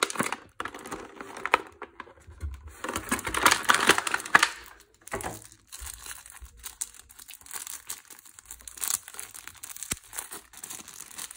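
Clear plastic packaging crinkling and rustling as it is handled and pulled off a black display stand, with irregular crackles, loudest about three to four and a half seconds in.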